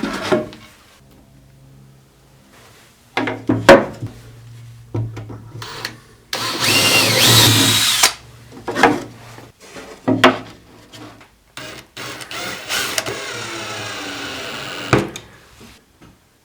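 Power tools running in several short bursts, one with a rising whine as it spins up, with knocks and clatter between them.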